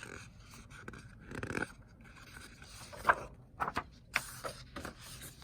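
Paper sliding and rustling as a picture book's page is turned, with a few short sharp clicks of the pages and book handling.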